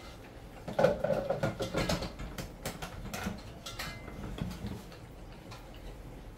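Kitchen handling noises: scattered light clicks and knocks of utensils and containers being moved about.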